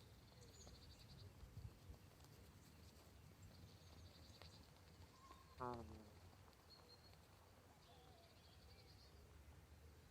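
A sleeping gosling snoring, with one short, slightly falling snore about halfway through against a quiet background.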